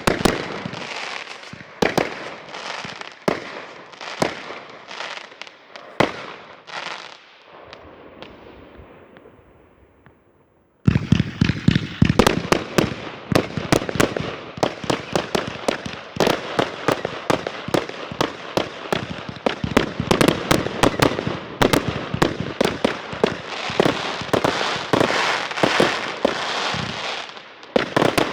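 Fireworks going off: scattered sharp bangs with crackling that thin out and die away over the first ten seconds. Then, abruptly, a dense barrage of rapid bangs and crackle.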